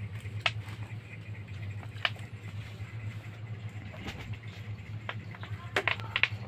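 Light taps and scratches as a kitten bats at a balloon on a string on a tiled floor: single sharp ticks about half a second and two seconds in, and a quick cluster near the end, over a steady low hum.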